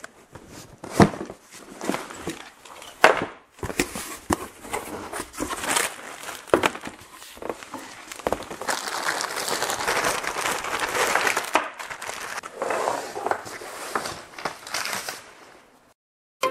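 A cardboard shipping box being handled and opened: irregular knocks, thumps and scrapes of the box and its flaps, with two sharp knocks about a second and three seconds in. From about halfway through, a long stretch of rustling and crinkling packing material as the contents are handled, which fades out near the end.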